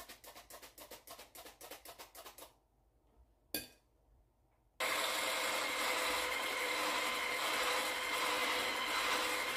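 Squeeze-handle stainless steel flour sifter rasping rhythmically, several strokes a second, as flour is sifted into batter. The sifting stops, a single knock follows, and about five seconds in an electric hand whisk switches on and runs steadily in the batter.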